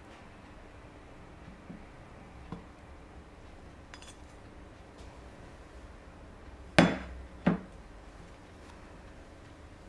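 Two sharp knocks about two thirds of a second apart, from a glass mixing bowl knocked against a stone countertop, with a few light clinks before them.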